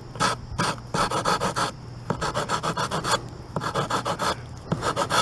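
Medium-grit sandpaper on a wooden block rubbed back and forth over dried putty on particle board, in quick runs of strokes with short pauses between them.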